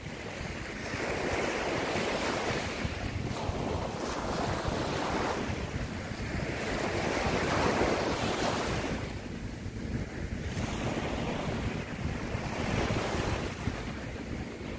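Small waves breaking and washing up over sand, the surf swelling and easing every few seconds, with wind buffeting the microphone as a steady low rumble.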